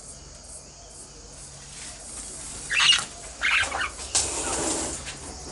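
Princess parrots stirring in an aviary: a couple of short, scratchy calls about three seconds in, then a second-long flurry that sounds like wing flapping. Faint insect chirring runs underneath.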